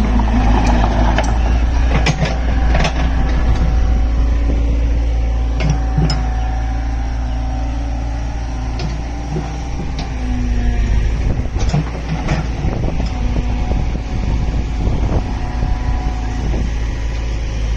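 Excavator's diesel engine running steadily with a deep rumble, with scattered clanks and knocks as the machine works.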